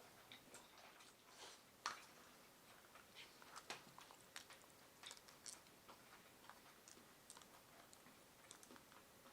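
Faint eating sounds: chilled ramen noodles being chewed, with scattered small clicks and taps, the sharpest about two seconds in.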